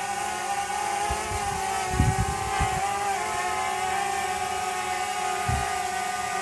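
DJI Mavic Mini quadcopter hovering close by, its caged propellers giving a steady, slightly wavering high whine. A few low thumps come through about two seconds in and again near the end.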